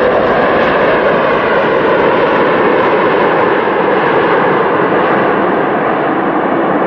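Airbus A330 airliner's jet engines roaring as it rolls along the runway, a steady loud rushing noise that eases slightly toward the end.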